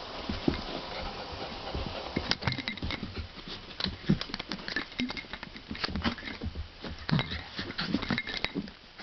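Two poodles play-fighting close to the microphone: scuffling and pawing, with many sharp clicks and taps.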